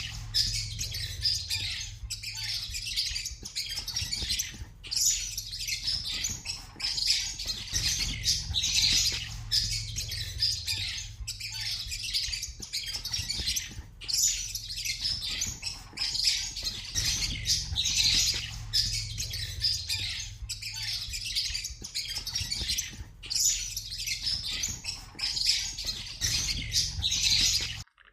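A flock of small pet birds chirping together in a dense, unbroken chatter, over a steady low hum. It cuts off suddenly near the end.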